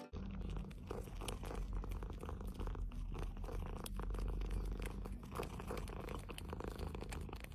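Domestic cat purring steadily while dozing: a continuous low rumble.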